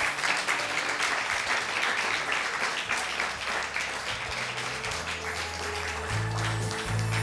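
Studio audience applauding, with music coming in under the clapping about halfway through and a bass line entering about five seconds in.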